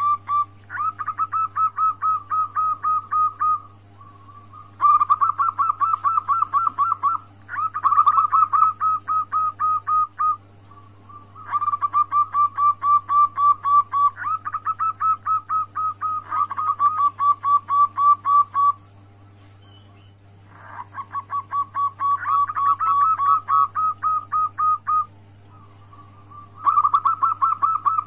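Female zebra dove (perkutut) giving its calling song to a male: bouts of quick, evenly repeated cooing notes, about seven a second, each bout lasting two to four seconds with short pauses between. A steady low hum and a faint fast high ticking run underneath.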